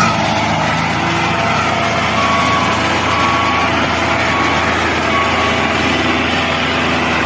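Small motor running steadily with an even hum, from a miniature DIY model tractor.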